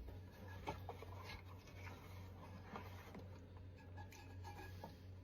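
Faint rubbing and scattered light clicks of hands pressing clay pads and seating a wooden bat onto a pottery wheel head, over a steady low hum.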